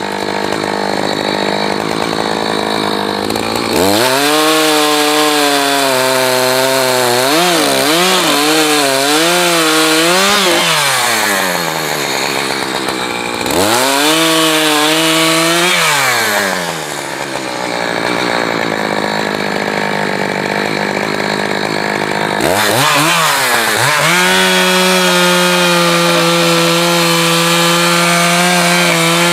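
Echo two-stroke chainsaw running at high throttle and cutting firewood. Its engine pitch drops and wavers as the chain bites into the wood, then climbs back between cuts.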